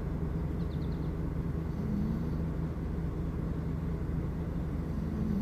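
Steady low outdoor background rumble, with a quick run of four faint high chirps about half a second in.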